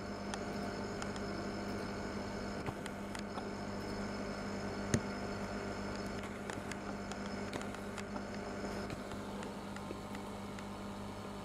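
Steady low electrical hum of running aquarium equipment, with faint scattered ticks and one sharper click about five seconds in.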